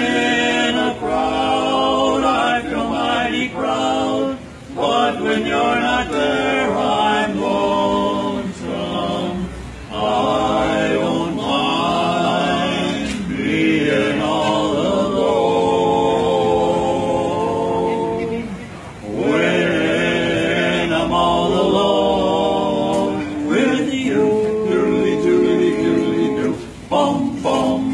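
A male vocal quartet singing a cappella in harmony, the phrases growing into long held chords in the second half.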